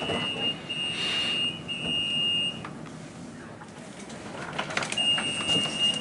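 Door warning signal of a Copenhagen S-train standing at a platform: a steady high electronic beep sounded three times in quick succession, then once more a couple of seconds later, with a few clicks and knocks just before the last beep.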